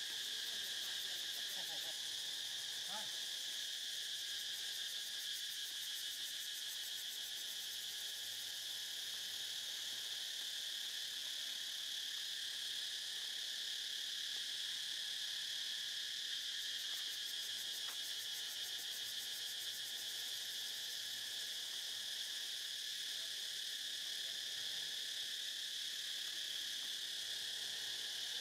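Steady insect chorus, a continuous high-pitched buzz.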